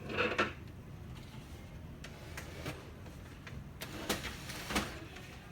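Parts of a laser printer's scanner unit being handled during disassembly: a short rattling cluster of clicks at the start, then a handful of separate sharp clicks and knocks.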